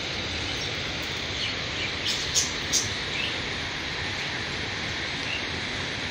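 Steady rush of water from a waterfall and the shallow stream running over stones below it, with a few short sharp ticks about two to three seconds in.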